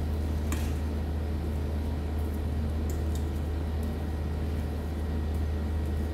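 A steady low hum, with a few faint light clicks, the clearest about half a second in.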